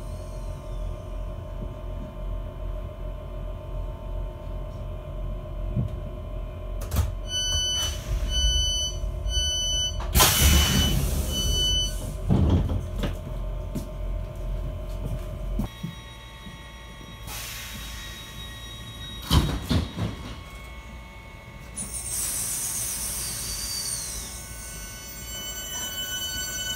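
Steady electric hum of a British Rail Class 465 Networker standing with its Hitachi IGBT inverters idling, heard inside the carriage. About seven seconds in, a run of door warning beeps sounds and the doors slide shut with a loud thump. The hum stops about halfway through, and near the end the hiss and whine of an approaching electric train builds.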